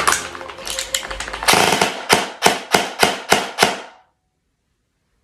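Airsoft gun firing: a quick burst, then about seven separate sharp shots roughly three a second that get slower, then it cuts off suddenly. The gun's rate of fire is sagging as it shoots, a sign of a poorly built or underpowered gearbox.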